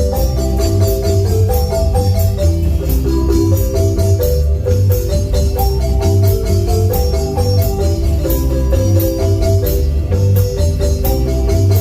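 A marimba band playing: a marimba melody of quick mallet notes over a heavy bass, with percussion keeping a steady beat.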